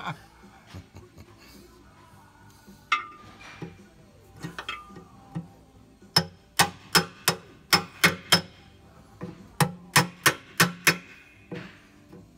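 Hammer blows on a long metal drift, peening the engine-to-transmission separator plate back where it hits the nose of the starter motor, to clear that interference. A few lighter knocks first, then from about six seconds in, two runs of sharp, ringing strikes about three a second.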